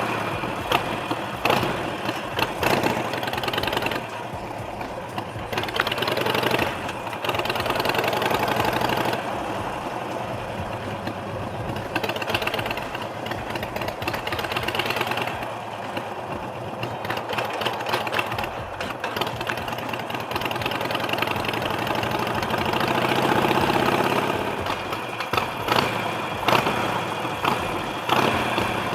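Harley-Davidson Sportster 883 Iron's air-cooled V-twin engine running while riding, its level rising and falling every few seconds as the throttle opens and closes.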